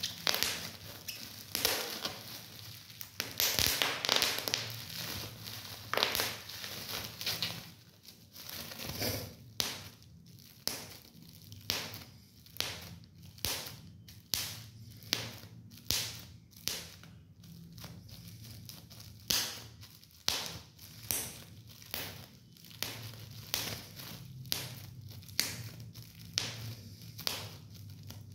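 Plastic bubble wrap crinkling as fingers squeeze it, then bubbles popping one after another in sharp snaps, about one to two a second, from a few seconds in.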